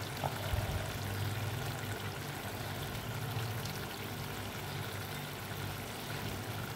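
Chicken karahi cooking in an aluminium karahi, its oily gravy sizzling with a steady hiss and a low hum underneath.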